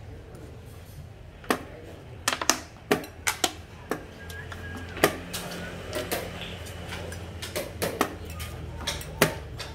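Xiangqi pieces clacked down on a wooden board and a digital chess clock's buttons tapped during fast play: about a dozen sharp clicks and knocks at irregular intervals, some in quick pairs.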